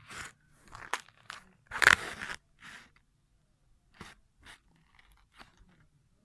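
Crinkly paper handling noises from a hand moving a cut-out paper model train: an irregular run of crunching scrapes and clicks, loudest about two seconds in.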